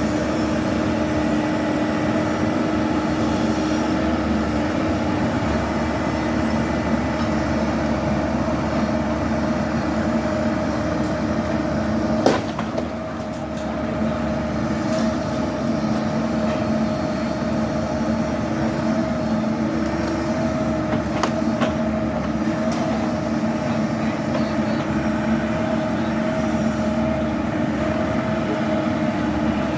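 A machine engine running steadily, with one sharp crack about twelve seconds in.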